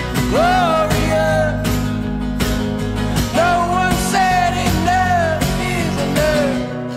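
Rock song: a singer holds long, gliding notes over guitar and a steady beat. The voice stops near the end and the instruments carry on.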